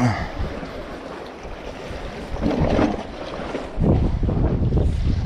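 Wind buffeting the microphone over a steady wash of noise, the low rumble swelling briefly about two and a half seconds in and growing loudest from about four seconds in.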